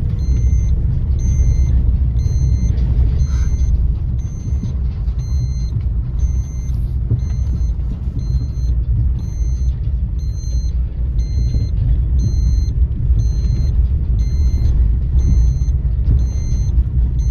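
Steady low rumble of a car moving slowly, heard from inside the cabin. Faint short high beeps repeat about twice a second throughout.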